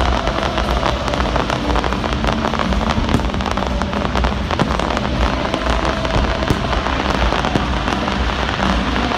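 Large fireworks display: a dense, continuous crackle from fountains and bursting shells, with scattered sharper pops.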